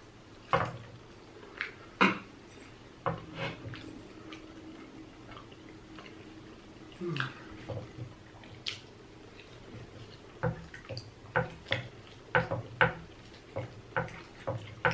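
Close-up eating sounds: irregular wet chewing and lip smacking while eating sauce-covered waffle fries.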